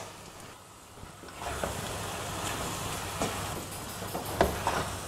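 Spinach, milk and rice sizzling in a hot pan while being stirred with a wooden spatula: a steady hiss that comes up after about a second and a half, with a few scrapes and knocks of the spatula against the pan.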